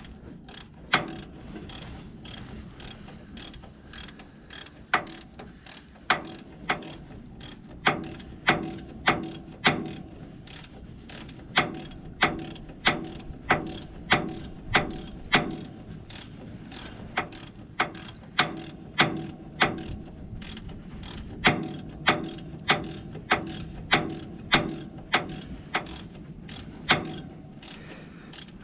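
Socket ratchet wrench clicking as it is worked to turn a starter mounting bolt on a truck: sharp single clicks, about two a second, in runs with short pauses.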